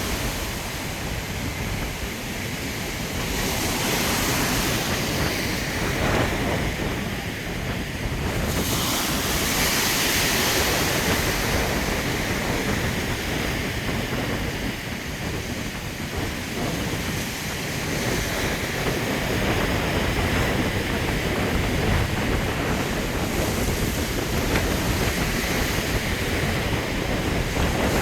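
Strong wind buffeting the microphone with a low rumble, over ocean surf breaking, the hiss of the waves swelling and easing every few seconds.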